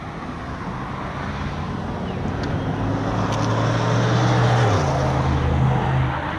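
A motor vehicle driving past, its engine and tyre noise growing louder, the engine note dropping in pitch as it passes about five seconds in, then fading.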